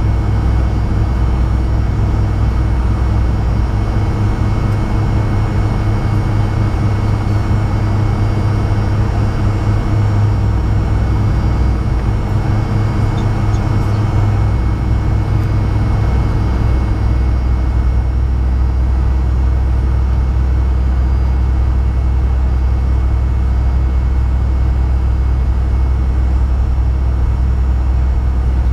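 Fokker 100's rear-mounted Rolls-Royce Tay turbofan engines running at low taxi power, heard from inside the cabin beside the engine: a steady low rumble with a thin, steady high whine over it.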